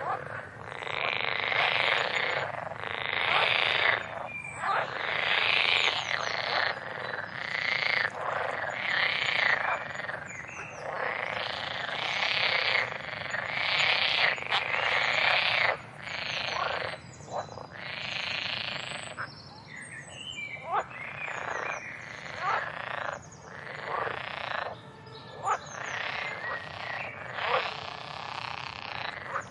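A chorus of many frogs croaking, their calls overlapping in bursts about a second long; the chorus thins out about halfway through.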